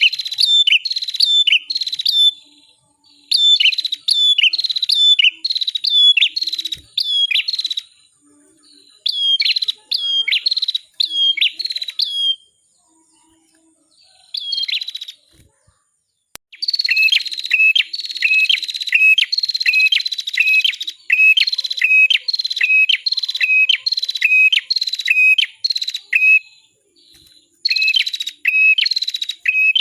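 A small songbird known locally as the red-headed prenjak or cimblek (kepala merah) calling in rapid runs of sharp, high chirps, several per second. There is a pause of about three seconds near the middle, then a longer, steadier run of the same chirps.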